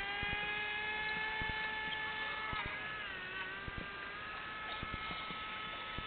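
Radio-controlled model boat's motor running with a steady whine that rises slightly, then dips and settles at a lower pitch about two and a half seconds in. Occasional short knocks are heard over it.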